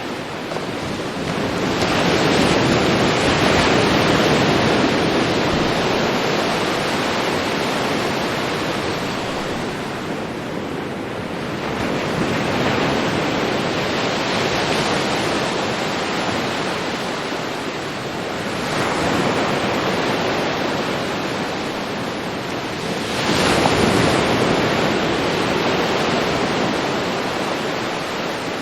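Ocean waves breaking and washing up a beach, about four swells that rise and then ebb away in a steady rush.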